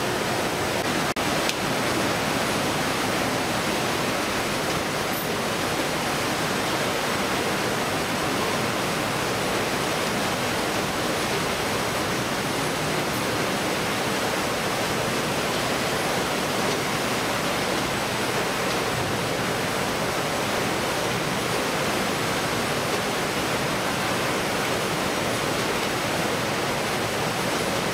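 Fish-processing line's conveyors and machinery running: a steady, even rush of machine noise with a faint constant high whine.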